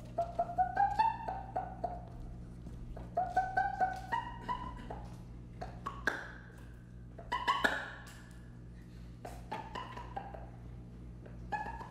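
Saxophones playing short, clipped notes in brief runs that step upward in pitch, with sharp clicks between them, in an improvised, broken texture with pauses between phrases. A steady low hum runs underneath.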